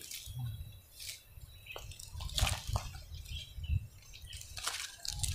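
Star apple (kenitu) leaves and twigs rustling and crackling as ripe fruit is picked by hand from the branches: a handful of short, irregular crackles and snaps.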